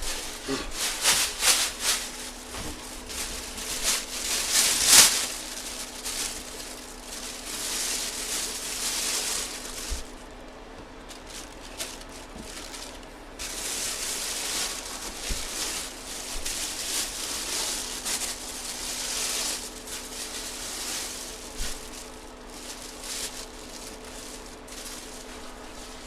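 Plastic packaging rustling and crinkling in irregular handfuls, loudest about five seconds in, as a collectible football helmet is bagged and packed, with a faint steady hum underneath.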